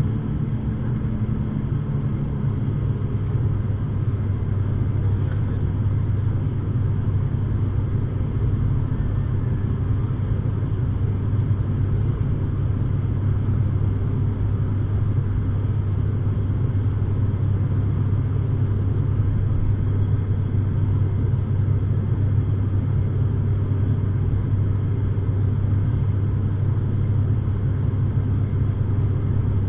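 ATR 72's twin turboprop engines and propellers droning, heard inside the cabin during the climb after take-off: a steady low hum with a strong deep propeller tone. A higher tone fades out in the first few seconds.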